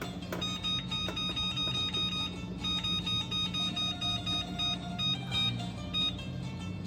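Background music: plucked guitar notes repeating in a steady rhythm over a held low tone.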